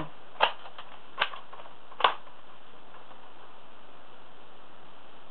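Sharp mechanical clicks from a suppressed L96 bolt-action spring airsoft rifle: three evenly spaced in the first two seconds and one more near the end.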